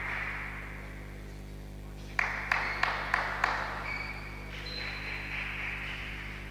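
A table tennis ball bouncing five times in quick succession, about three bounces a second, each a sharp click with a short ring. A steady background hiss and hum runs throughout.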